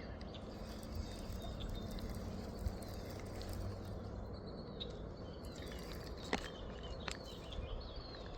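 Outdoor pond-side ambience: faint bird chirps over a steady low background noise, with a couple of sharp clicks about six and seven seconds in.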